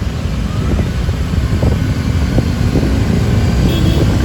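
Loud, steady low rumble of road traffic, with a vehicle engine running close by.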